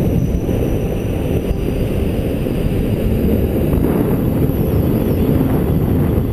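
Wind noise from the airflow of a paraglider in flight buffeting an action camera's microphone: a loud, steady low rumble.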